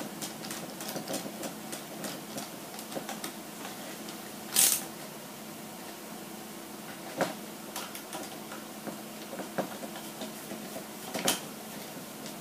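Small screws, kit parts and hand tools being handled while assembling an RC truck's leaf-spring suspension: scattered light clicks and ticks, with one louder sharp clack a little over a third of the way in and two sharper taps later. A faint steady hum runs underneath.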